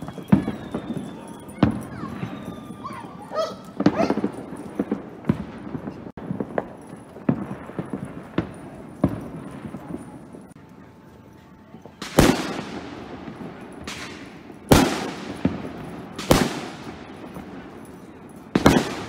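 Fireworks and firecrackers going off. Scattered sharp cracks and pops come first, then several louder bangs in the second half, each with a long echoing tail.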